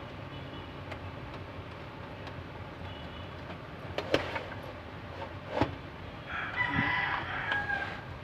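A rooster crowing in the background near the end, over a steady low hum, with a couple of sharp clicks about four and five and a half seconds in.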